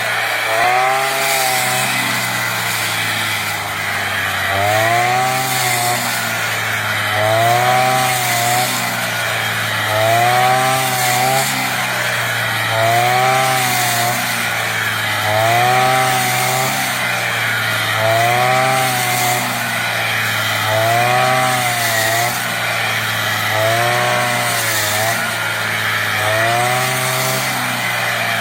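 Brush cutter engine running hard as it cuts rice stalks, its pitch swelling and dipping again in a regular rhythm, about every three seconds.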